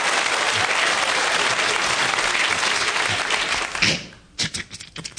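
Studio audience applauding, a dense steady clapping that stops abruptly about four seconds in, followed by a few short, sharp clicks and knocks.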